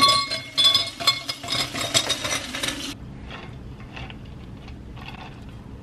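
Kitchen tap running into a stainless steel sink while a cold bag is rubbed under it, with a string of sharp, ringing clinks. About three seconds in it cuts to a much quieter stretch of faint, soft knocks.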